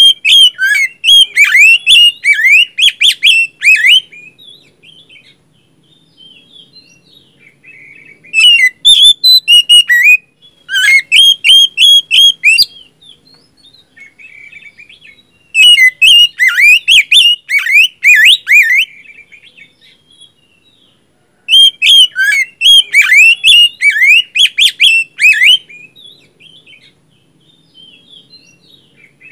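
Oriental magpie-robin singing loud, rapid phrases of varied whistled and sweeping notes, in five song bouts separated by pauses of a few seconds.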